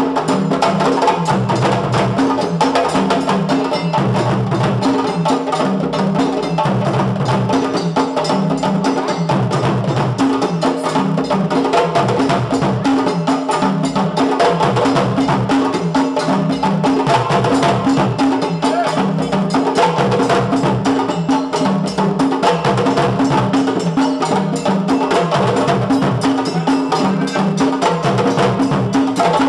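Several djembes played together in a fast, dense rhythm, with a repeating pattern of low bass notes underneath.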